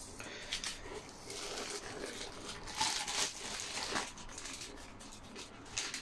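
Plastic wrapping crinkling and rustling as it is handled and pulled from a fabric tool bag. There are a few brief louder rustles about three and four seconds in.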